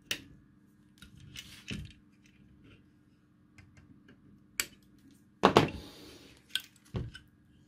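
Flush side cutters snipping the excess resistor leads off a freshly soldered circuit board: several separate sharp clicks. About five and a half seconds in comes a louder, longer clatter.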